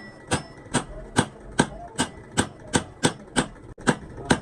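Hammer blows struck in a steady rhythm, about two and a half a second, on a truck clutch plate being repaired.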